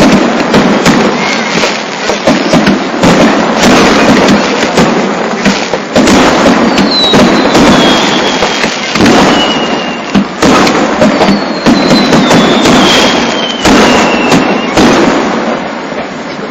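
Fireworks going off in a dense barrage: rapid bangs and continuous crackling, with two falling whistles, one about seven seconds in and one about eleven seconds in. The bangs thin out near the end.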